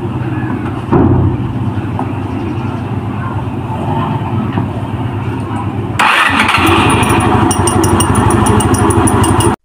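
Easyride 150N scooter engine running at idle, then throttled up about six seconds in and running louder. A fast, even ticking rides on top of the engine near the end.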